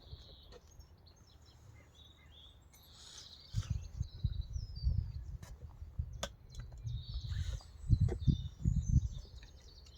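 Small birds chirping, with bursts of low rumbling from about three and a half seconds in.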